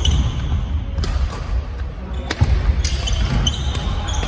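Badminton rally: sharp cracks of rackets striking the shuttlecock several times, about a second apart, with players' footsteps thudding on the wooden court floor.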